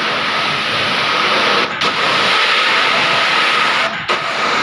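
High-pressure water jet hissing from a pressure-washer gun, fed by an AR (Annovi Reverberi) XW2115 pump rated 200 bar and 21 litres a minute and driven by a 7.5 HP motor, with a faint steady whine under the spray. The sound cuts out very briefly twice, about a second and a half in and near the end.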